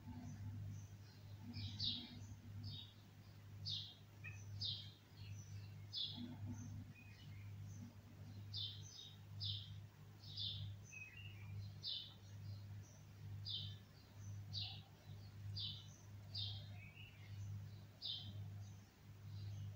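A bulbul calling over and over, short high chirps about once a second, over a steady low hum.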